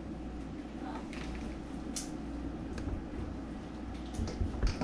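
Spoon stirring thick squirrel and dumplings in an enamel pot: a few faint clicks, then soft knocks and a clink against the pot near the end, over a steady low hum.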